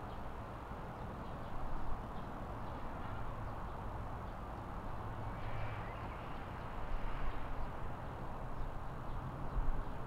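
Outdoor nature ambience: a steady rushing noise that swells a little now and then, with faint short bird calls about halfway through.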